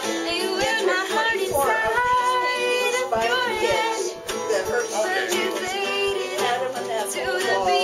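Acoustic guitar strummed live, with a woman singing along.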